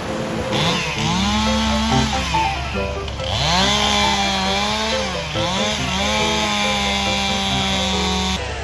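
Chainsaw engine revving up about a second in, easing off and revving again a few times, then running steadily at high speed before cutting off near the end. Background music plays under it.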